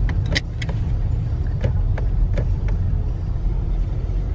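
Car running and rolling along, heard from inside the cabin as a steady low rumble of engine and tyres, with a few scattered sharp clicks in the first three seconds.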